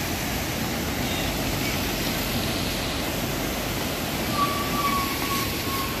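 Steady rushing outdoor noise with no distinct events, joined near the end by a faint, thin high tone lasting about a second and a half.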